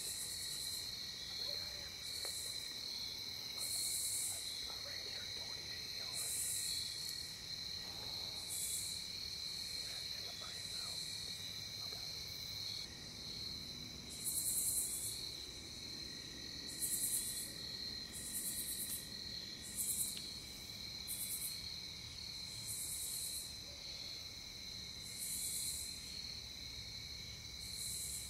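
Crickets and other night insects chirring at dusk: a steady high-pitched trill, with short, very high raspy bursts from other insects repeating every second or two.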